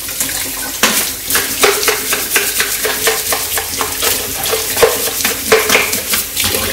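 Kitchen tap water splashing into a stainless steel sink while a plastic baby bottle is rinsed and shaken under the stream. From about a second in there is a quick, irregular run of sloshes and splashes.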